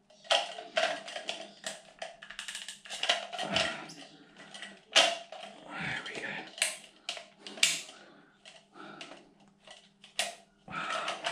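Irregular clicks, taps and scrapes of plumbing fittings and hand tools being handled.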